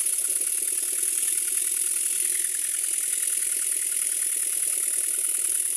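Stuart Twin Launch twin-cylinder model steam engine running in reverse on compressed air: a rapid, steady run of exhaust beats over a constant hiss of air. The engine is running better, though its valve eccentric is still not fully adjusted.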